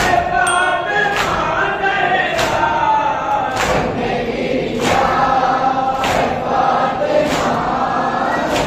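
Many men chanting a Shia noha lament together, marked by the massed slap of hands striking chests in matam, one beat about every 1.2 seconds.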